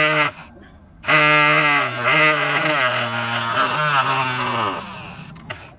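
Small motor of a homemade table saw spinning a thin cutting disc with a steady whine. It stops shortly after the start and starts again about a second in. Its pitch then drops in steps as wood is fed into the blade, and it slides down and fades near the end.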